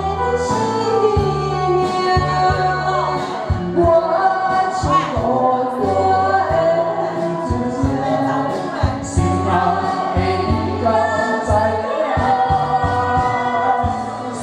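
Karaoke duet: a man and a woman singing into handheld microphones over a recorded backing track with a steady bass line.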